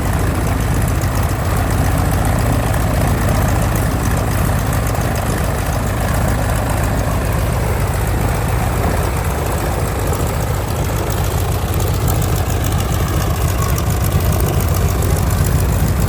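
Vintage trainer aircraft's radial engine running at idle with the propeller turning: a steady, loud low rumble.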